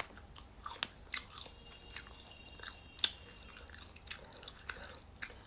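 Close-up chewing and biting of a latiao, a chewy spicy gluten strip snack: irregular small clicks from the mouth.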